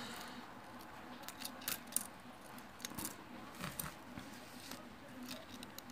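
A string of faint, irregular light clicks and taps, about ten in all, as fingers press and lift flex cables on an opened smartphone's chassis during reassembly.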